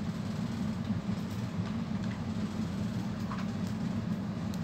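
Steady low rumbling drone of background machinery, even throughout, with a few faint light clicks over it.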